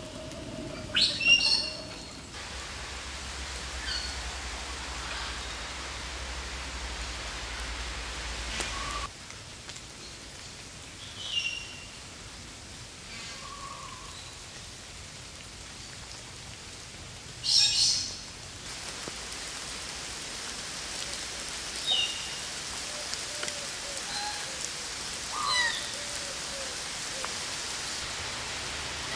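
Garden birds chirping in short, scattered calls over a steady hiss of falling rain. The loudest chirps come about a second in and again about two-thirds of the way through.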